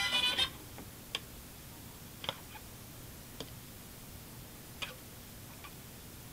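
Emerson AM/FM stereo being tuned up the FM band: the broadcast sound cuts out just after the start. Then comes a faint hiss with five short clicks, about a second apart, as the tuner steps between stations.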